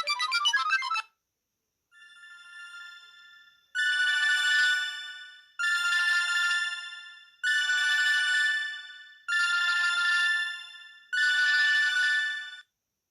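Sony Ericsson T610 mobile phone playing its ringtones: a busy melodic tune ends about a second in. After a short gap a new ringtone starts with one faint ring, then five loud trilling rings, evenly spaced about two seconds apart, each fading away.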